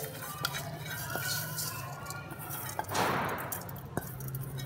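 Soaked flaxseeds tipped from a bowl into a hot iron kadhai: a few light clinks and a short rush of pouring seeds about three seconds in, over a steady low hum.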